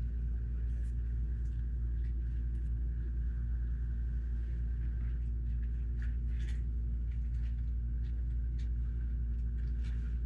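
Steady low electrical-sounding hum or room rumble, with faint scattered clicks of plastic Lego pieces being handled.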